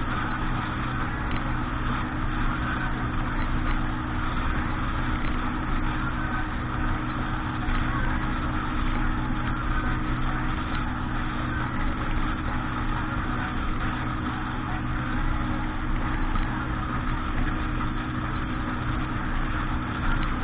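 Motorboat engine running at a steady speed while underway, with a constant low drone and the rush of wind and water.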